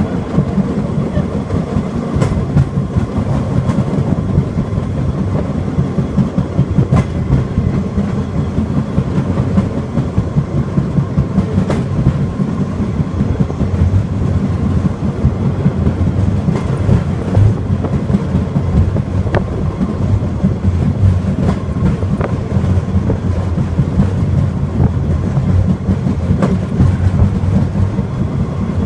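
Takachiho Amaterasu Railway cart running along the track: a steady low rumble of wheels and motor, with irregular clicks and knocks from the rails.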